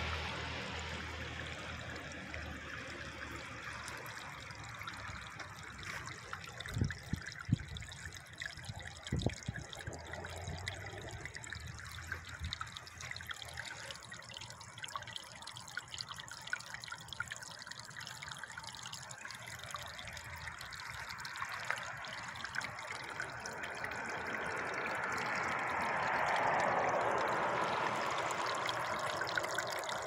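Paddy water trickling and spilling through a gap in a rice-field levee into a hole, steady throughout and growing louder in the last few seconds. A few dull knocks sound about seven to nine seconds in.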